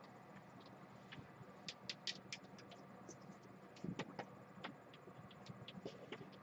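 Faint handling sounds of a phone charging cable being fitted into desk cable clips: scattered light clicks and taps, a quick cluster of them about two seconds in, and a soft knock about four seconds in.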